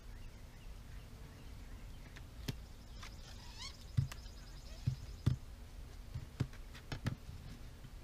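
Irregular knocks and clacks as a ratchet tie-down strap is fitted around a wooden beehive, with a brief high chirping call about three and a half seconds in.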